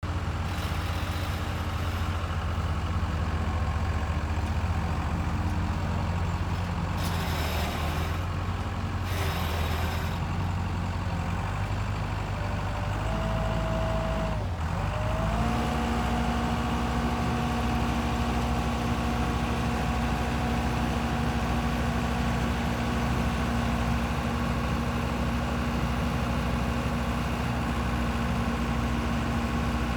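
Case 4T-390 diesel engine of a Case 95XT skid steer running steadily, with two short hisses around a quarter of the way in. About halfway through the engine note changes and settles at a steady higher pitch, with a whine over it.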